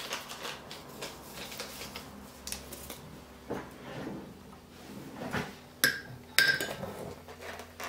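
Kitchen things being handled on a counter: light taps and rustles, then two sharp clinks about six seconds in, each with a brief ring, like a spoon or container knocking against something hard.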